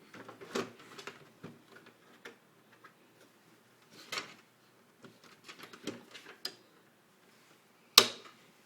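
Scattered clicks and light knocks of plastic and metal parts being handled in an HP Z800 workstation's tool-less case, with one sharp, loud snap near the end as a part latches or releases.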